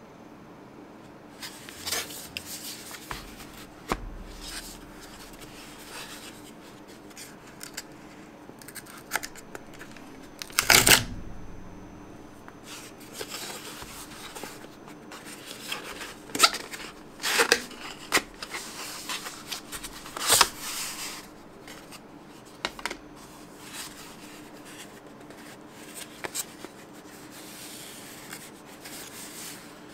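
Cardboard packaging and a moulded paper-pulp case handled by hand during unboxing: scattered rustles, slides and scrapes of paperboard, with the loudest scrapes about eleven seconds in and a few more in the middle.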